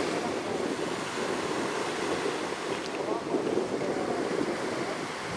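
Small waves breaking on a sandy beach, with wind buffeting the microphone.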